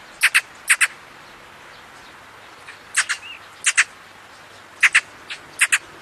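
Magpie giving short, harsh calls, mostly in quick pairs, repeated several times.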